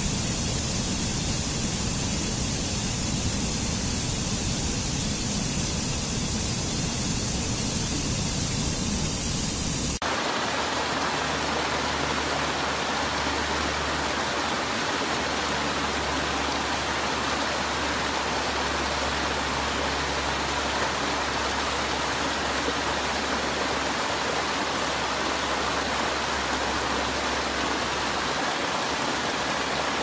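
Steady rush of white water from a mountain stream tumbling over rocks. About ten seconds in it switches abruptly to a different, brighter rush of water from small cascades.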